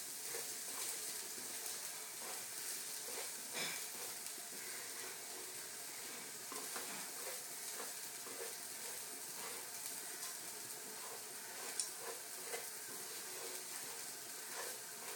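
Rice frying and browning in hot oil with whole spices, sizzling steadily. A wooden spoon stirring it makes faint scrapes and taps against the non-stick pan.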